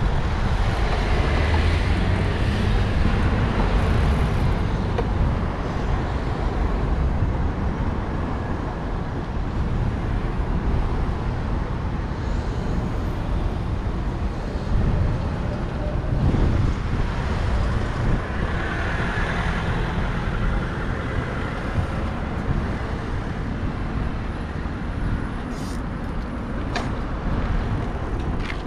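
Urban road traffic heard from a moving bicycle: a steady rumble of cars and engines running and passing, with a few short clicks near the end.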